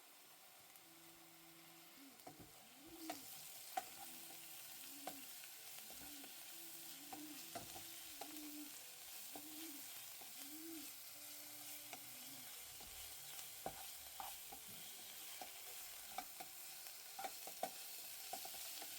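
Faint sizzling of an onion and spice masala frying in oil, as a spoon stirs it and scrapes and knocks against the pan. The sizzle comes in about three seconds in and goes on steadily, with frequent sharp clicks of the spoon on the vessel.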